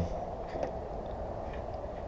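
Steady low background hum, with no distinct event.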